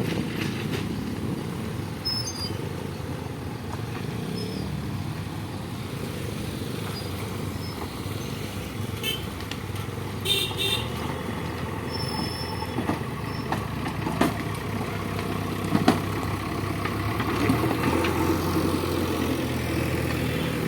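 Road traffic waiting at a railway crossing: motorcycle and other vehicle engines running, with several short horn toots about nine to eleven seconds in.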